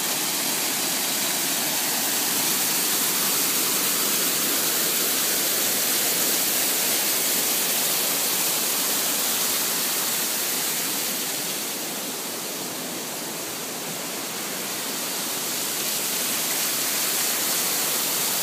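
Steady rushing of a small waterfall, water pouring from a sluice over a stone wall. It dips a little for a couple of seconds past the middle, then comes back up.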